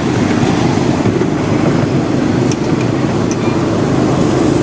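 Steady rumble of a ride-on miniature railway train running along its track, with a few light clicks.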